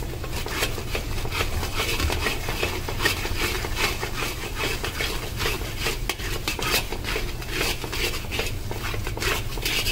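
Metal spatula scraping and stirring khoa in a metal kadhai, a quick, continuous run of scrapes against the pan as the khoa is roasted in ghee. A steady low hum runs underneath.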